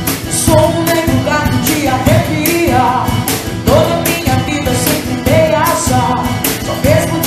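A band performing a pop-rock song: a lead voice singing over instruments and a steady drum beat.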